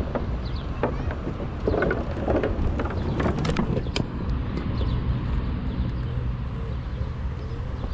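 Xiaomi Mi 1S electric scooter rolling over the planks of a wooden footbridge with a run of knocks and clatters, then onto stone paving about four seconds in, where it settles into a steadier rumble.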